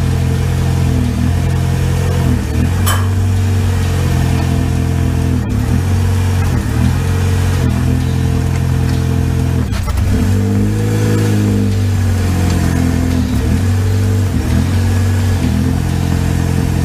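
Pontiac Sunfire's Ecotec four-cylinder engine running, heard from beneath the car. It is blipped several times, its pitch rising and falling, to rock the engine on its rubber mounts against the new plastic skid pad.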